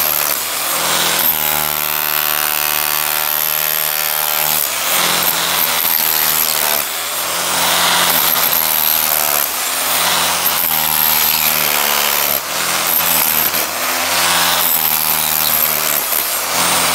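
Electric demolition hammer (Hilti-type) chiselling through concrete and hollow clay brick: a loud, continuous motor whine with a hammering rattle, dipping briefly a few times.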